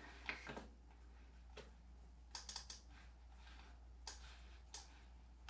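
Faint clicks of a computer mouse button: a few scattered single clicks and a quick cluster about two and a half seconds in, opening Amiga Workbench windows.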